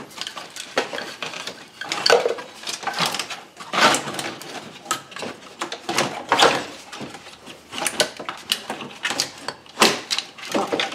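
Irregular clatters, knocks and scrapes of hard plastic parts and hoses being handled, wiggled and pulled loose in a car's engine bay.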